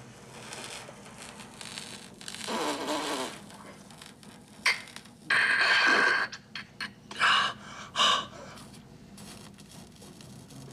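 A man groaning and blowing hard, pained breaths while a heated wire brand is pressed into the skin of his chest: a low groan about two and a half seconds in, a long loud hiss of breath about five seconds in, then two short sharp breaths.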